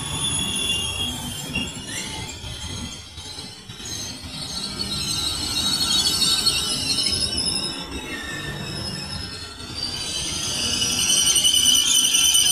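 Double-deck electric train rolling slowly along the platform, its wheels squealing in high, wavering tones over a low rumble. The squeal grows louder from about ten seconds in.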